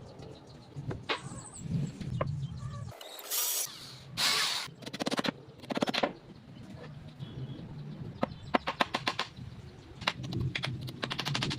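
Assembly work on wooden furniture: scattered knocks and clicks, two short hissing scrapes a few seconds in, then several runs of rapid clicking rattles.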